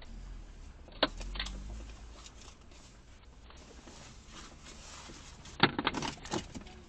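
Low steady rumble of a car interior with the engine running, broken by a few sharp clicks and rattles, one about a second in and a short cluster near the end.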